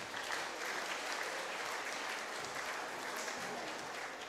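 Audience applauding steadily, the clapping beginning to die down near the end.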